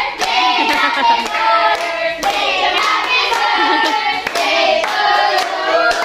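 A group of voices, adults and children, singing together while clapping along on a steady beat.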